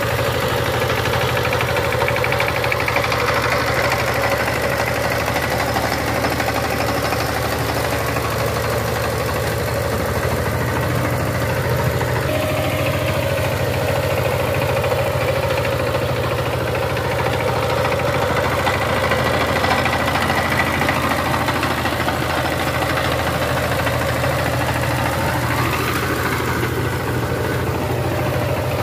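Power tiller's diesel engine running steadily at idle with a rapid, even knock of firing strokes.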